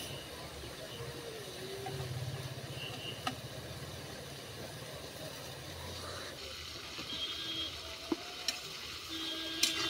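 A metal spatula stirring and knocking against a metal wok, with a few sharp clinks near the end that ring on briefly, over a low steady rumble.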